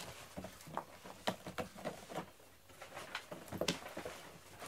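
Irregular light taps, scuffs and knocks of a cat pouncing and scrambling after a feather wand toy on foam play mats, with a couple of louder knocks about a second in and again about three and a half seconds in.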